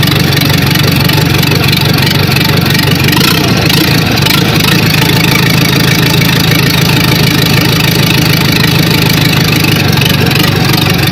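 Perkins diesel engine of a Fiatallis 345 running steadily, freshly repaired.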